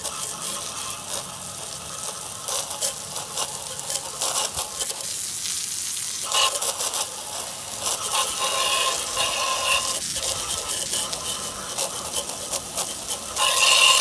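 A narrow jet of water spraying onto a furnace blower wheel (squirrel cage), hissing and spattering as it washes the dirt off. An on-and-off higher tone joins the spray from about six seconds in, and it gets louder near the end.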